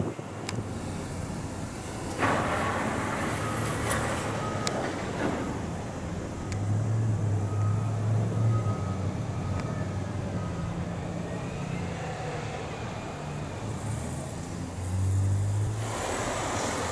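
Engine of a heavy construction vehicle running steadily, with a reversing alarm beeping at even intervals during parts of it and stretches of rushing noise over the top.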